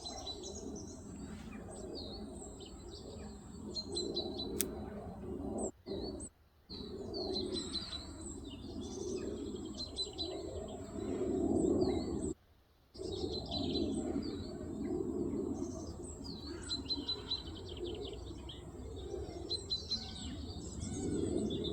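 Woodland songbirds chirping and singing, many short calls and trills overlapping, over a low uneven murmur of distant sound. The sound cuts out briefly twice.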